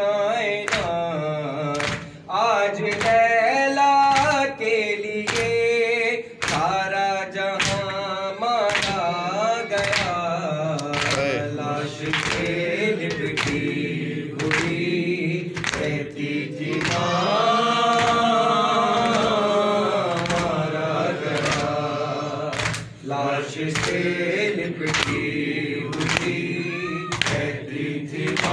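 A man's voice singing an Urdu noha (mourning lament) into a microphone, with other voices joining in, over a steady beat of sharp chest strikes (matam), about three every two seconds.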